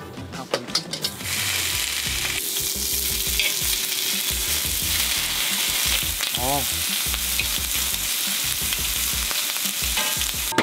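Bacon slices frying in fat on a round griddle pan over a portable gas stove, giving a steady, loud sizzle. A few light knocks come about half a second in, just before the sizzle starts, and the sizzle cuts off suddenly at the end.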